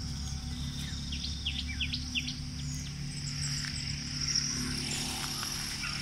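Outdoor ambience: a steady high-pitched insect drone, with a run of short chirping bird calls about one to two seconds in, over a low rumble.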